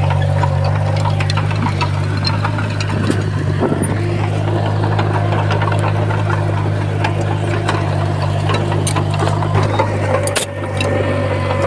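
Komatsu bulldozer's diesel engine running steadily, with scattered small metallic clicks and rattles. About ten and a half seconds in, a sharp clank comes with a brief dip in the engine sound.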